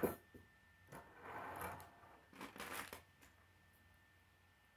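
Light clicks and a short scraping rustle of K'nex plastic parts on a wooden tabletop, then a few more scattered clicks.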